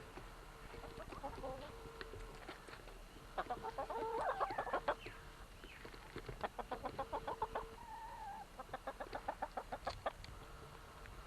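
Domestic hens clucking in three quick runs of about nine clucks a second, the loudest run about three and a half seconds in, with a faint steady hum underneath.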